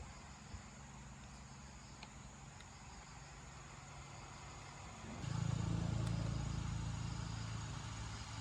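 Motorbike engine idling with a steady low hum, growing clearly louder about five seconds in and then easing back down gradually.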